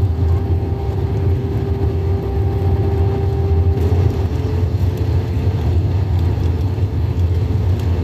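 Airbus A319 cabin noise in flight: a steady low rumble of the engines and airflow, with a steady engine tone that steps up slightly in pitch about four seconds in.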